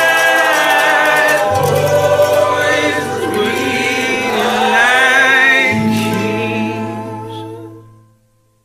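The closing line of a song, sung by a man with layered backing voices in long held notes over steady low notes. It fades out to silence near the end.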